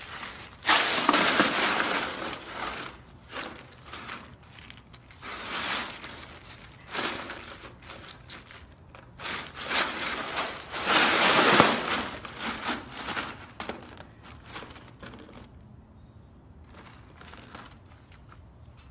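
Ice cubes clattering and crunching against each other and the plastic tub as a husky rolls and wriggles in them, in repeated bursts, the loudest about a second in and midway, settling down near the end.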